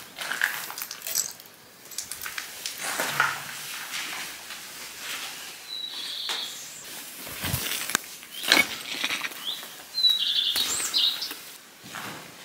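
Footsteps on a debris-covered floor, irregular steps scuffing and crunching as someone walks, with a small bird chirping briefly about six seconds in and again a few times near ten seconds.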